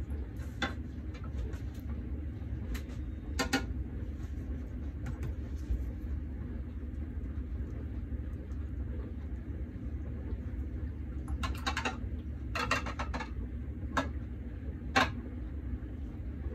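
Scattered light metallic clicks and taps from a metal offset spatula knocking against a springform pan and a plastic water jug as it spreads cream. There are a few single taps and two quick rattling clusters about three-quarters of the way through, over a steady low hum.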